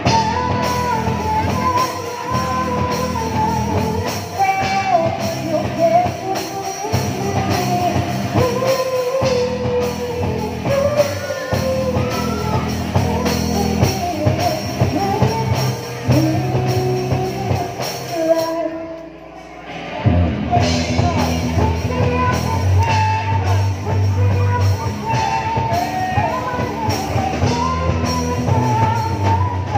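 Amateur rock band playing live: a lead singer over electric guitars and drums. About two-thirds of the way through the music briefly drops out, then the full band comes back in.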